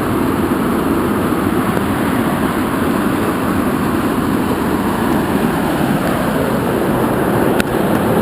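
Loud, steady rush of a waterfall's falling water.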